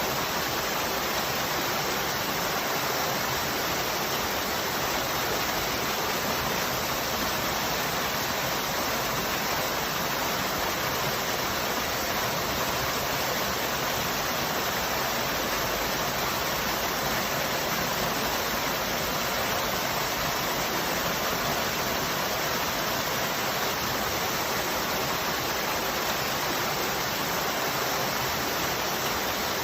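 Waterfall: a steady, unbroken rush of falling water, even throughout.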